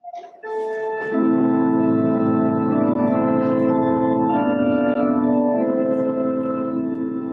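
Church organ playing slow, sustained chords, entering softly and filling out to full chords about a second in.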